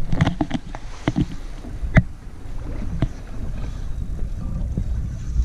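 Low steady rumble of a fishing boat on open water, with scattered knocks and clicks on board, one sharp knock about two seconds in.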